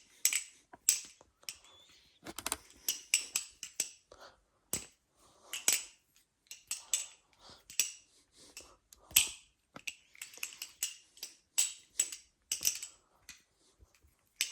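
Armed Shark Glidr OG balisong being flipped in freestyle tricks: a quick, irregular run of sharp metallic clicks and clacks as the handles swing open and shut and knock together.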